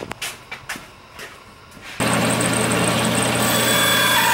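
A few light knocks from a wooden board being handled. Then, about halfway through, a Sears Craftsman 12-inch belt-drive band saw is heard running loud and steady with a low hum. Near the end a higher whine comes in as the blade cuts a wooden trim piece.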